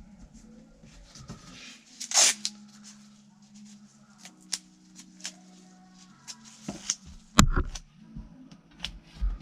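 Tape ripped briefly off a roll about two seconds in, amid light clicks and knocks of bolts and a metal seat bracket being handled, with one sharp click about seven seconds in.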